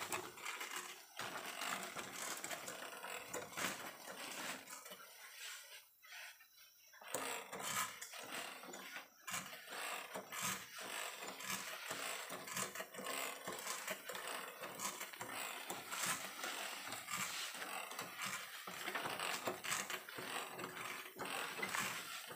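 Manual lever-operated backpack sprayer being pumped and used: irregular clanks and creaks from the pump lever over the hiss of the spray, with a brief lull about six seconds in.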